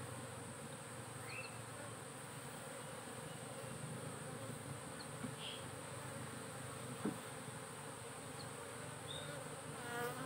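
Asian honeybee (Apis cerana) colony buzzing steadily from an open hive box. There is a single sharp tap about seven seconds in, and the buzz swells briefly near the end.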